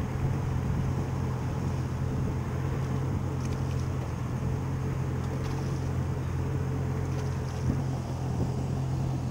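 Idling engine of a Yamaha 190 FSH jet boat, giving a steady low hum that holds the same level throughout.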